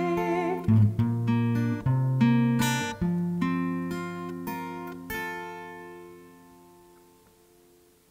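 Acoustic guitar playing the closing bars of a hymn accompaniment. A last sung note with vibrato ends within the first second. A final chord is strummed about five seconds in and rings on, fading away.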